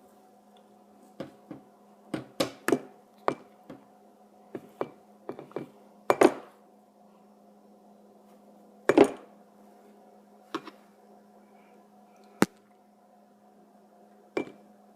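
A string of irregular light taps and knocks from kitchen items being handled, with two louder knocks about six and nine seconds in, over a faint steady hum.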